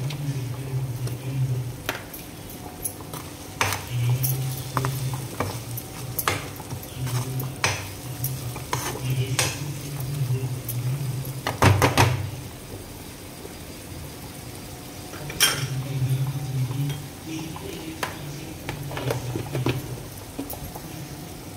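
Metal spatula scraping and knocking against a pan, stirring spices into frying tomato and onion masala, with irregular clicks and scrapes and a light sizzle.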